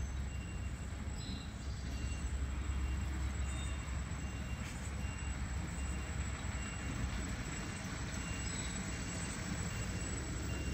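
Garbage truck engine running with a steady low rumble.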